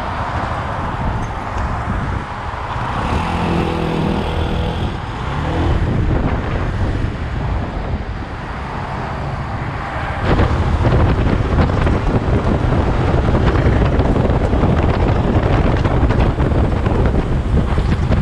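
Wind buffeting the microphone over the low running of a Daelim Daystar motorcycle's engine while riding. About ten seconds in the sound changes abruptly and gets louder, with heavier low rumble.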